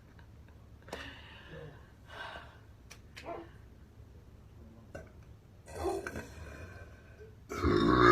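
A woman breathing and gasping softly a few times, then, near the end, a loud, low burp starts.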